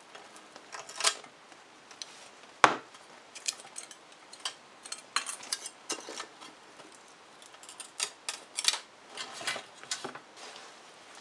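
Steel needle-nose pliers picking and scraping at a chrome-plated metal bar as an old foil label is peeled off: irregular small metallic clicks and short scrapes, with one sharper knock a little under three seconds in.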